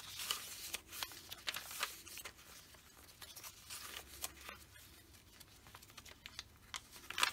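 Paper pages of a handmade journal being turned and handled: soft, scratchy paper rustling with light crinkles, and a louder rustle near the end.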